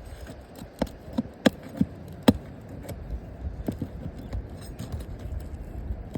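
A handful of sharp clicks and knocks, about six, bunched in the first four seconds over a low rumble of background noise, as of hand tools and shingles being worked on a roof.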